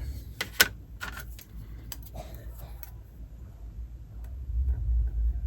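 Small clicks and taps of a screwdriver and small screws and hinge parts being handled, with a few sharp clicks in the first second and fainter ticks after, then a low rumble of handling near the end.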